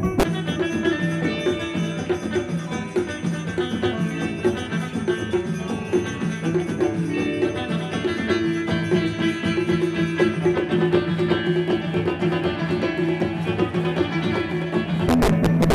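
Live Amazigh folk music: an instrumental passage on a plucked, banjo-like lute (loutar) with no percussion. The hand drums come back in near the end.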